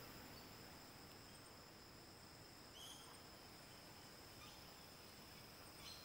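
Near silence: faint outdoor ambience with a steady high insect drone, and a few brief faint chirps about three seconds in, about four and a half seconds in and near the end.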